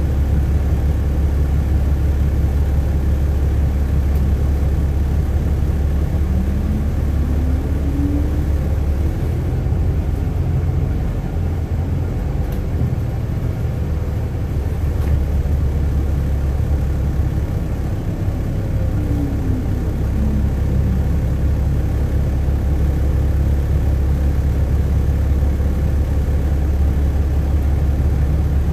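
Cabin sound of a 2007 MCI D4500CL diesel coach on the move: a steady low engine and road rumble. A whine rises in pitch about six seconds in as the coach gathers speed and falls again around nineteen seconds in as it slows.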